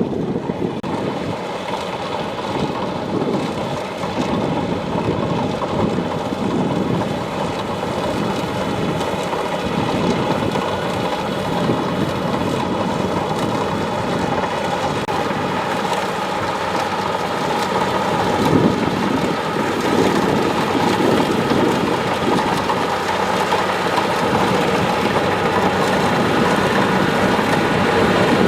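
Kubota DC-70 Plus combine harvester's diesel engine and machinery running steadily: a constant machine whine under a dense, even rushing noise.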